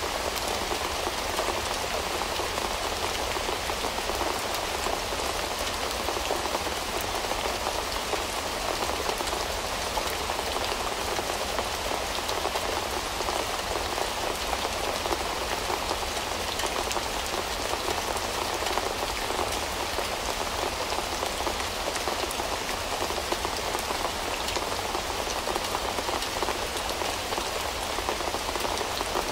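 Steady rain falling, a dense even patter of many small drops without let-up.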